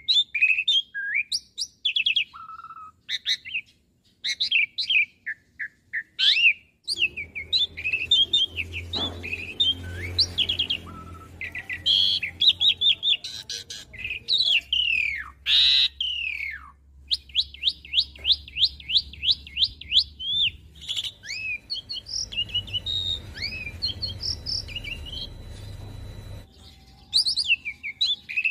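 Asian pied starling singing a long, varied song of whistles, chirps and chattering trills, including a fast run of repeated notes at about six a second past the middle, over a faint low hum.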